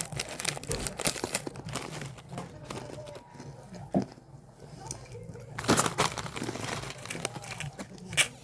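Plastic snack packaging crinkling and rustling as it is handled and torn open, in irregular crackles, loudest about six seconds in.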